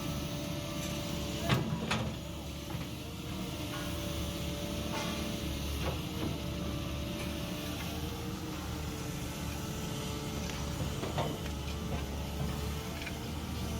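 JCB 3DX backhoe loader's diesel engine running steadily while it works, with a few sharp metallic knocks, the loudest about a second and a half in.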